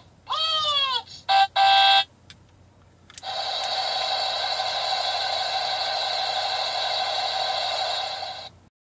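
Disney Resort Cruiser light-up toy bus playing its built-in electronic sounds through a small speaker as its key is turned. A short falling swoop comes first, then a brief buzzy tone about a second and a half in, then a long steady electronic tone for about five seconds that stops near the end.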